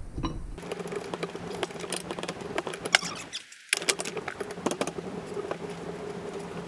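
Hand tools working on a backhoe hydraulic cylinder clamped in a vise: a quick, irregular run of small metallic clicks over a steady low hum.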